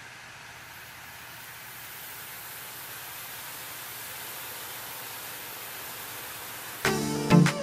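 Batter dripping through a slotted spoon into hot oil in a frying pan, the oil sizzling steadily and growing slightly louder. Music with sharp, plucked-sounding strokes comes in near the end and is the loudest sound.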